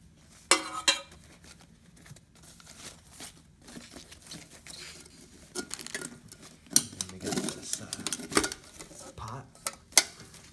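Paper liners rustling and crinkling as nested non-stick camping pots are unpacked, with a few sharp clanks of the pots knocking together.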